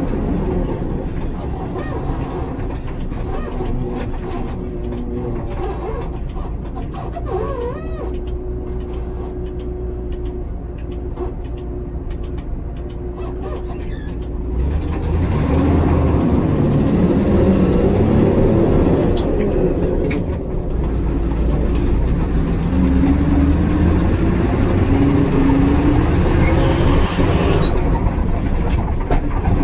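1980 Ford LN700 truck's 370 cubic-inch big-block Ford V8 running while the truck drives at low speed, heard from inside the cab. About halfway through it gets louder as the truck pulls away, and the engine pitch rises.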